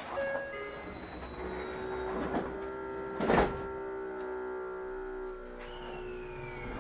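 Tokyu 9000 series motor car's GTO VVVF inverter and traction motors whining as a stack of steady tones from about a second in, heard from inside the car as the train moves off. There is a click at the start, a short loud clunk about three seconds in, and a falling tone near the end.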